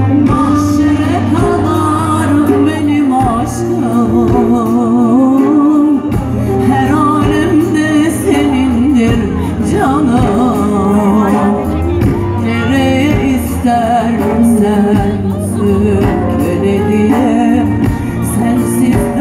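Loud live music through a concert sound system: a woman singing into a microphone over backing music with sustained bass notes.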